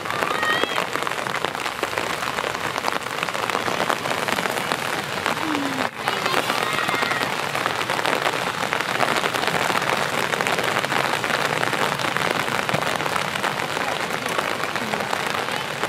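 Rain falling steadily, a dense even patter of drops.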